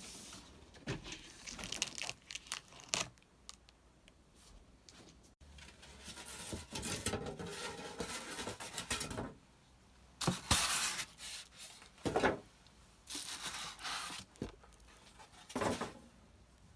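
Packaging being torn and crumpled by hand: rustling followed by several separate loud rips in the second half.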